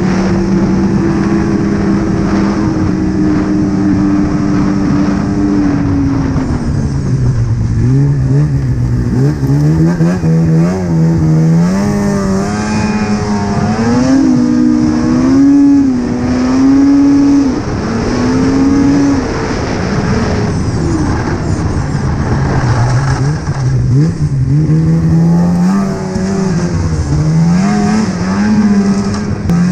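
Polaris Rush 800 snowmobile's two-stroke twin-cylinder engine running under way. Its pitch is held steady and sinks slowly for the first several seconds, then the revs rise and fall repeatedly as the throttle is worked on and off.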